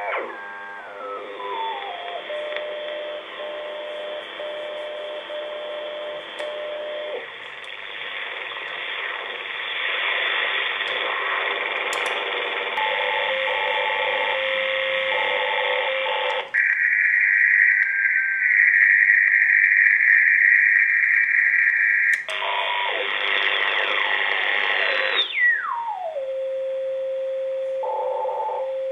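Shortwave audio from an AEG Telefunken E800/2 receiver's loudspeaker as it is tuned across the bands: narrow, hissy radio sound with whistling beat tones that slide in pitch as the dial turns, and steady beat notes in between. About sixteen seconds in, a louder, harsher signal band takes over for about six seconds, then the hiss and tuning whistles return.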